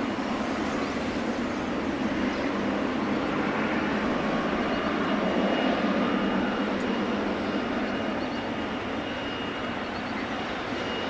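Jet engines of a Boeing 777-300ER (GE90 turbofans) at taxi power: a steady rushing drone, with a faint high whine coming in about four seconds in.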